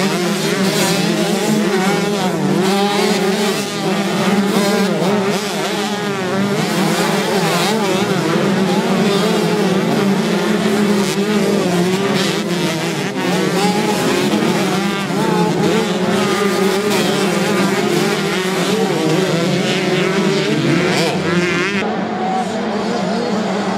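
A pack of 125 cc motocross bikes racing together, many engines revving up and down at once, their wavering pitches overlapping.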